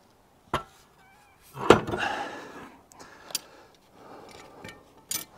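Metal clanks and knocks from hand tools and loosened exhaust parts during removal of an excavator's muffler. There is a sharp click about half a second in, a loud clank just before two seconds with a brief rattle after it, and two lighter knocks later.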